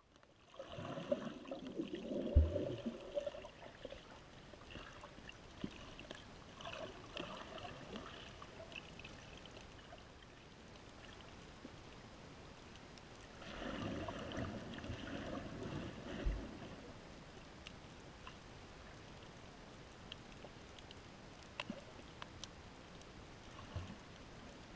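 Muffled water sloshing and bubbling around an underwater action camera's housing. It grows louder twice, for about three seconds each time: about a second in and again about halfway through, each stretch with a dull knock.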